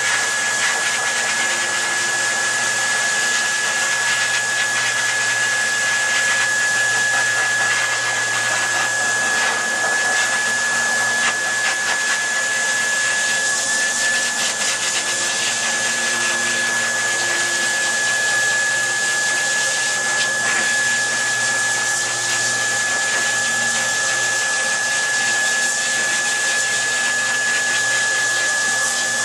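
Dog-grooming dryer blowing steadily on a standard poodle's coat: a constant rush of air with a steady high whine from the motor.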